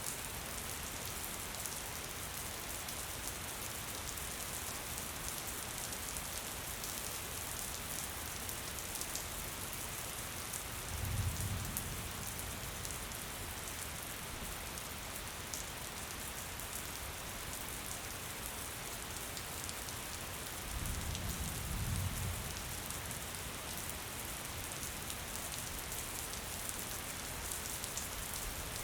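Steady gentle rain falling, an even hiss with fine pattering of drops. Two brief low rumbles rise under it, about a third of the way in and again about two-thirds through.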